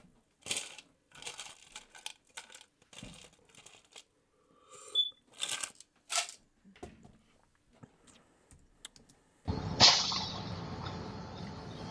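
Faint scattered small clicks and crinkling handling sounds. Near the end, the ambulance dashcam's audio starts suddenly: steady road and engine noise heard inside the ambulance cab.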